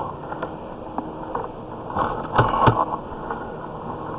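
Sewer-inspection camera push cable being fed into a drain line: scattered clicks and knocks over a steady background hiss, a few stronger knocks grouped about two seconds in.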